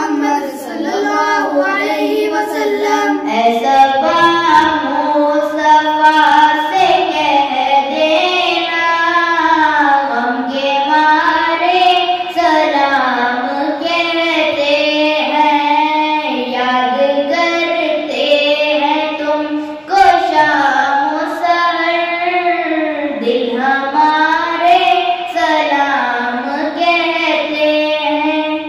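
A boy singing an Urdu salam, a devotional greeting to the Prophet Muhammad, solo and unaccompanied into a handheld microphone. The single voice holds long notes that bend and waver in pitch, with a short break for breath about two-thirds of the way through.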